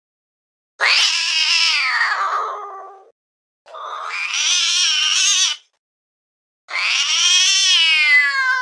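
Domestic cat making long, drawn-out wavering yowls: three calls in a row with short silent gaps, the last still going at the end.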